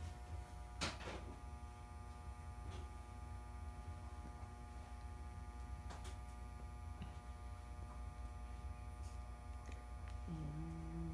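Steady low electrical hum in a small room, with one sharp click about a second in and a few fainter ticks later. Near the end a low, steady pitched tone begins.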